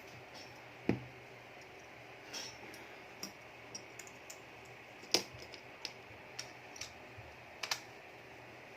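Irregular small clicks and taps of a cellphone's plastic and metal parts being handled and fitted together, the battery going back in; about a dozen, with a few louder snaps about a second in, midway and near the end.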